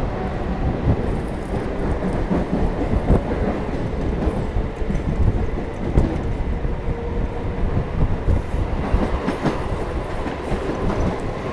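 Chennai suburban EMU local train running, heard from on board: a steady heavy rumble with irregular clicks and knocks of the wheels over the rail joints.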